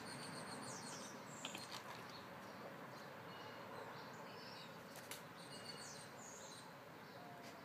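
Faint bird song: the same short, high phrase of quick descending notes heard twice, about five seconds apart, over a low steady outdoor background hiss, with a couple of soft clicks between.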